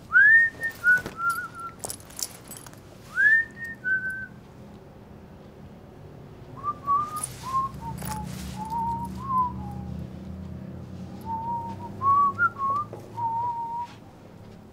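A person whistling a short tune: two rising swoops, then a run of short notes in a lower, wandering line. Sharp clicks or knocks sound between the phrases.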